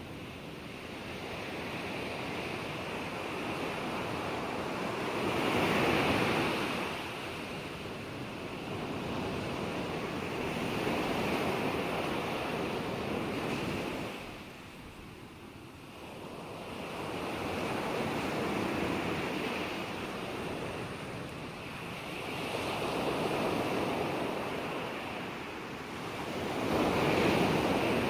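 Ocean waves washing ashore in slow surges a few seconds apart, each swell of surf hissing up and then drawing back, with a quieter lull about halfway through.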